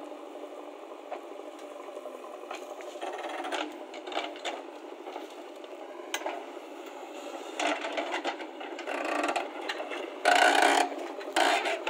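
JCB backhoe loader digging with its rear bucket: the engine and hydraulics working while the steel bucket scrapes and rasps through dry soil and stones, with irregular clicks and rattles. The scraping grows louder about ten seconds in.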